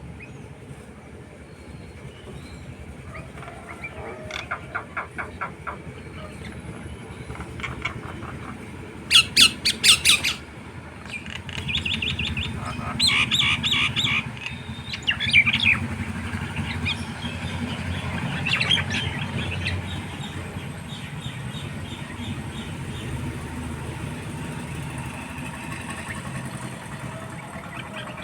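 Birds calling in several series of rapid, harsh repeated notes, loudest about nine to ten seconds in. A low engine rumble rises underneath from about twelve seconds in.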